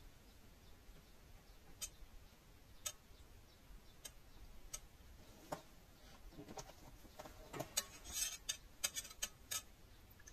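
Faint, scattered sharp clicks, then a quick flurry of clicks and taps near the end: a metal thermometer probe knocking against a stainless steel bowl while it stirs melted vegetable wax.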